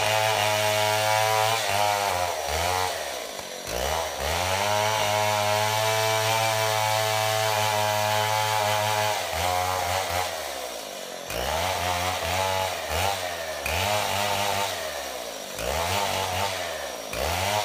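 Stihl 070 chainsaw's large two-stroke engine running at high revs as it cuts through a big bengkirai hardwood log. The engine note holds steady for a few seconds in the middle, and otherwise keeps dropping and climbing back up, about once a second towards the end.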